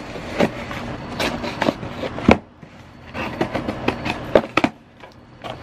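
A cardboard mailing box being opened by hand: rustling, tearing and scraping of cardboard and packaging, with several sharp knocks and rips, the loudest about two seconds in and again past four seconds.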